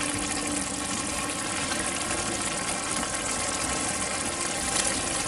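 Steel pot of pasta water at a rolling boil, bubbling steadily, while spaghetti is lifted out and water streams off it back into the pot.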